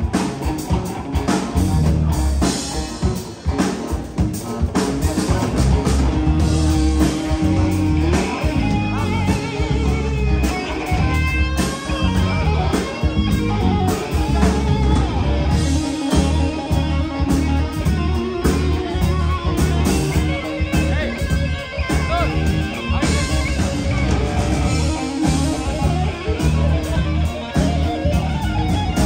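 Live rock band playing an instrumental passage: electric guitars over a steady low end and drum kit, with no singing.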